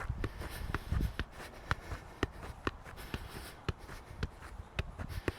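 A football being kicked up repeatedly, the ball thudding off the foot in a steady rhythm of about two touches a second. There is some wind rumble on the microphone near the start.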